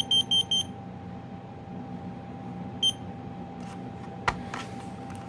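Combination smoke and carbon monoxide alarm being tested: four quick, high beeps of its carbon monoxide alarm pattern, then a single beep near three seconds in. A few sharp handling clicks follow about four seconds in.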